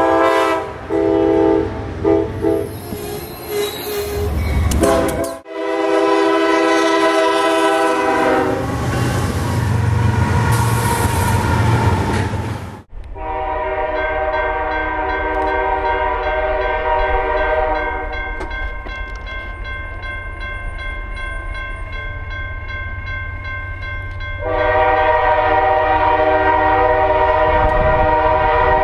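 Diesel locomotive air horns blowing multi-note chords: short broken blasts at first, then a loud horn over the low rumble of a passing train that stops abruptly about thirteen seconds in. After that a steady horn chord from an approaching train sounds for a long stretch, weaker in the middle and louder again near the end.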